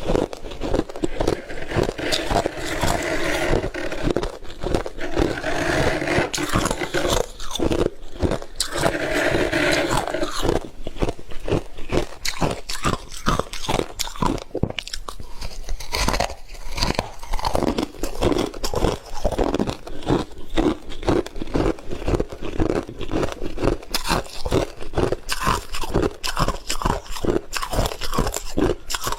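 Freezer frost being chewed close to the microphone: rapid, dense crunches one after another.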